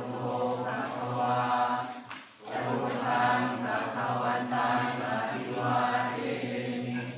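A group of low voices chanting together in unison, a Buddhist chant recited in long, steady phrases. There is a short breath-pause about two seconds in, and the chant stops at the very end.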